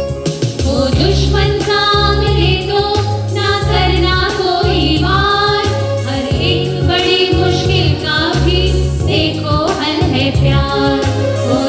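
A group of women singing a Hindi song together to electronic keyboard accompaniment, the voices coming in about half a second in.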